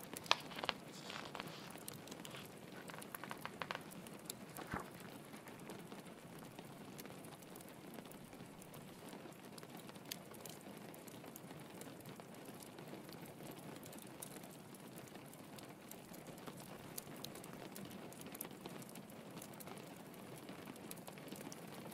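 Steady rain pattering with a log fire crackling. A few sharper pops come in the first five seconds, the loudest just after the start, then mostly the even rain hiss with occasional faint crackles.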